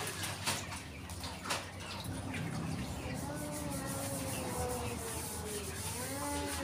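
Knocks and water sounds from a plastic bucket drinker being handled and rinsed out during cleaning. In the second half a drawn-out, gliding call-like tone rises and falls.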